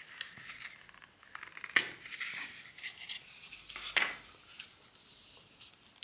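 Clear plastic clamshell packaging of an M.2 SSD being handled and pried open: small plastic rustles and clicks, with two sharper snaps, one about two seconds in and one about four seconds in.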